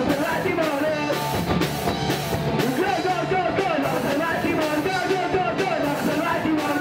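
Punk rock band playing live: electric guitar, bass and a steady drum beat, with the singer's vocals into the microphone over them.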